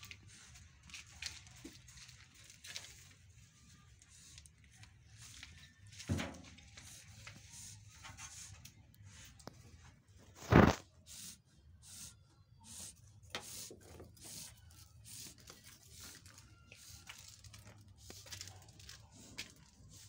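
Rustling and scattered light clicks of sheep moving about on straw bedding in a small pen, with one loud thump about halfway through.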